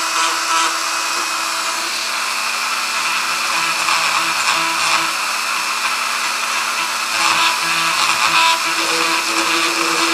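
Dremel rotary tool with a small diamond bit running with a steady whine, grinding and shaping the hoof of a lead toy figure. Scratchy grinding noise comes and goes as the bit bites the metal.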